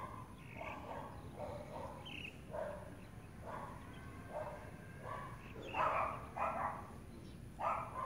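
A dog barking repeatedly: a dozen or so short barks at uneven intervals, loudest about six seconds in and again near the end.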